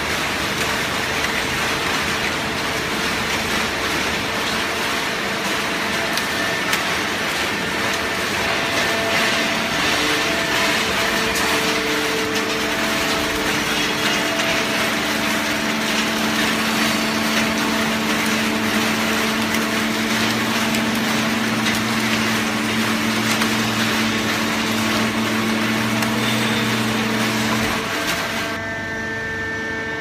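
Automatic horizontal hydraulic waste carton baler running: a steady, loud machine noise with several steady hums, a lower hum joining about two-thirds in. Near the end the noise cuts off abruptly.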